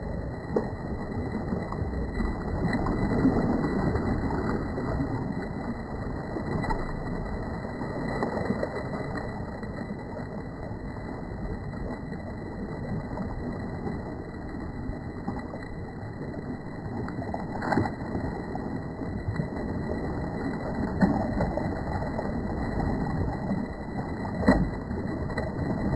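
Sea water sloshing and lapping close to the microphone, a dull, muffled wash with a few sharp knocks.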